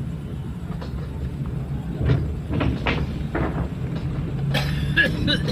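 Public minibus (angkot) engine running while it drives, a steady low drone, with a few short knocks and rattles in the middle and a louder rough noise near the end.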